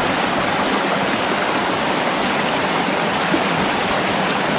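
Trout creek water rushing steadily over rocks, with a brief click about three seconds in.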